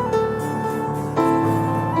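Keyboard or piano playing soft, slow chords, with a new chord coming in just over a second in.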